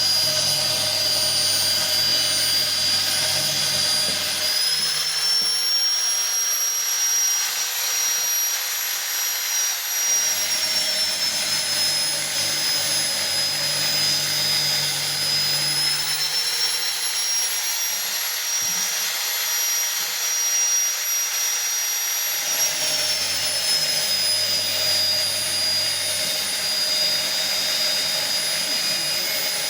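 Electric grinder sharpening a circular saw blade, running with a steady high whine. Three times its pitch sinks for several seconds and a lower hum comes in, as the wheel is worked against the blade, then the pitch climbs back.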